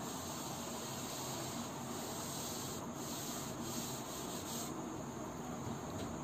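Steady background noise with a constant high-pitched hiss running through it, with no distinct events.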